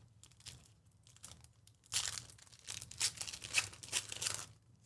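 Foil wrapper of a Panini Select basketball card pack being torn open and crinkled by hand as the cards are slid out. A few light crinkles come first, then a louder stretch of tearing and crackling from about two seconds in that stops just before the end.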